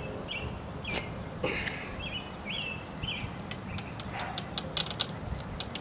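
A bird chirping over and over, a short rising-and-falling note about twice a second, with a run of sharp clicks in the second half.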